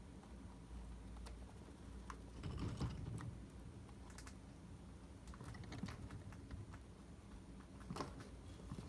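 Faint, irregular clicking and light rustling from chinchillas shifting and grooming on the plastic and wire floor of their cage. There is a louder cluster about three seconds in and a single sharp click near the end.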